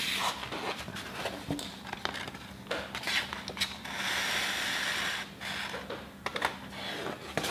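Paper pages of a small booklet rustling and being handled while embroidery thread is pulled through a hole in its spine. About four seconds in, a steady hiss of just over a second as the thread is drawn through the paper.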